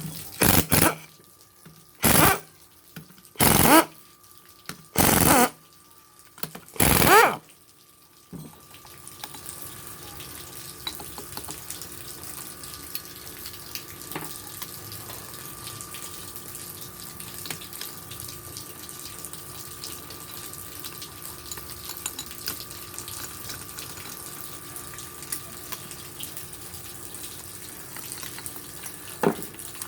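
Five short bursts from a power tool, about one and a half seconds apart, typical of an impact wrench loosening a motorcycle engine's cylinder-head nuts one by one. After them comes a steady hiss with a faint hum and small ticks.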